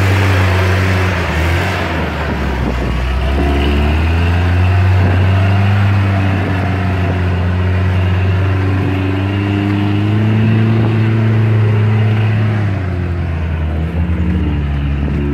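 Lifted Toyota pickup's engine running at low revs under load as the truck crawls up a steep rock slab, the revs rising and falling with the throttle and easing off a couple of seconds before the end.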